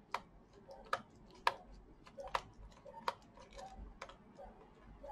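Precision screwdriver backing a small screw out of a laptop's plastic bottom case: faint, irregular sharp clicks, roughly one a second, with softer ticks between.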